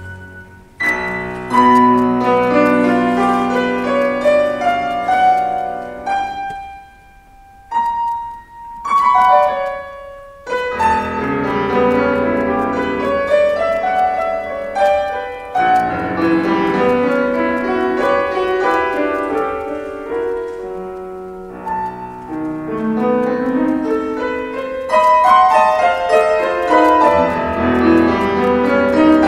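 Piano playing a classical-style rhapsody, full chords and runs that thin to a few sparse single notes about seven seconds in, then resume fully about ten seconds in.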